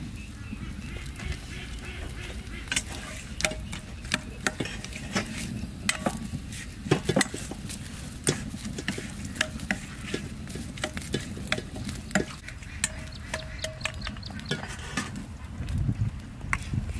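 Wooden chopsticks knocking and scraping against a stainless steel bowl while turning spice-coated tilapia, giving many short, irregular clicks.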